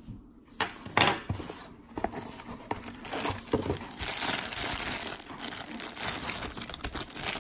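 Clear plastic packaging bag crinkling as hands work it open and handle the cable inside. A few light knocks come in the first two seconds, then steady crinkling from about three seconds in.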